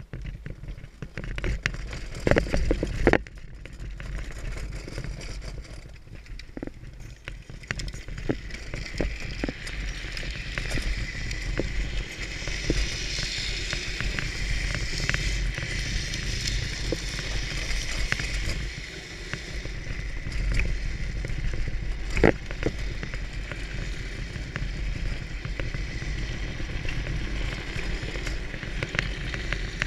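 Drift trike rolling and sliding downhill on asphalt: a steady rumble and hiss of the wheels on the road, building about a second in. Scattered clicks, with loud knocks about two to three seconds in and again about 22 seconds in.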